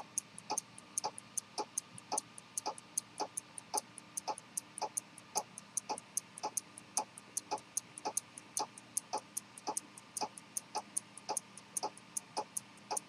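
A c.1890 H.C. Wing chronometer pocket watch with a helical hairspring, running. Its escapement gives a fast, even ticking of several sharp ticks a second.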